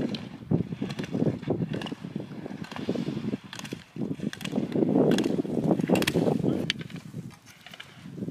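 Wind buffeting the microphone in uneven gusts, loudest a little past the middle, with a few faint clicks.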